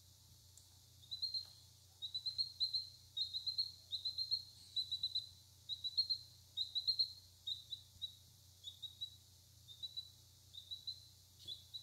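Three-day-old silkie-cross chick peeping: short high peeps in quick runs of three or four, repeated from about a second in.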